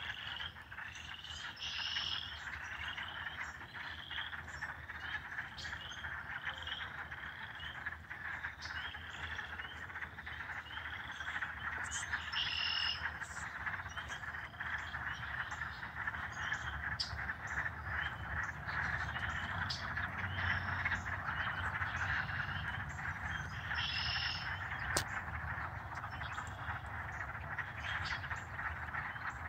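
A dense chorus of frogs calling from a pond. It is a continuous mass of chirping, with one frog's short high chirps repeating more than once a second through the first half and more sparsely after.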